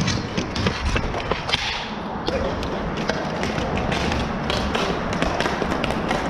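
Ball hockey play on a plastic tile floor: an irregular run of sharp clacks and taps from hockey sticks striking the ball and the floor.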